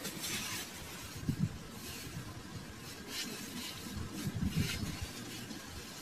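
Bare hands scooping and scraping dry sandy soil out of a small dug hole: irregular gritty scrapes and low soft thuds.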